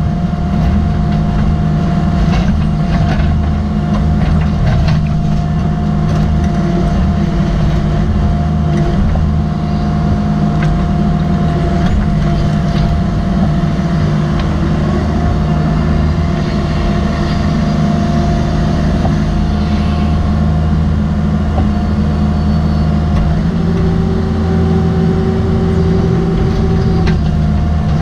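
Cat 305.5E mini excavator heard from the operator's seat, its diesel engine running steadily under digging load with a whine that steps in pitch several times as the controls are worked. A few sharp knocks come through as the bucket digs in rocky ground.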